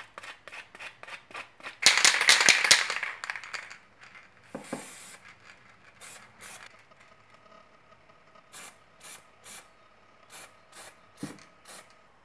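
Quick rubbing strokes on a small part, loudest for about two seconds near the start. Then an aerosol can of black paint sprays in a series of short hissing puffs, the first about half a second long and the rest shorter.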